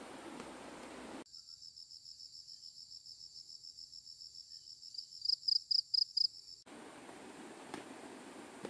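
An insect chirping in a high, rapid pulsing trill that starts about a second in. Near the end it breaks into five louder chirps, then cuts off abruptly, leaving a faint background hiss.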